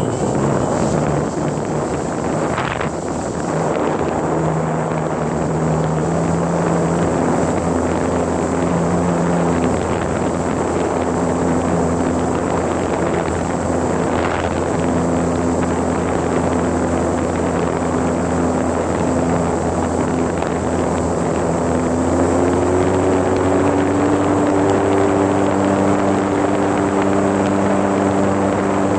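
Model airplane's motor and propeller running steadily, heard from a phone mounted on the plane, with heavy rushing wind on the microphone. The motor's tone changes pitch a few times and steps up about three quarters of the way through as the throttle is raised.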